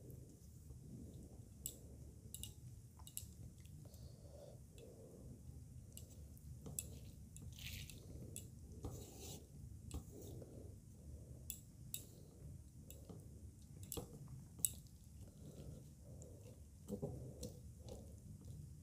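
Faint, close-miked chewing and wet mouth sounds of someone eating rice and fish curry by hand, dotted with many small sharp clicks and smacks.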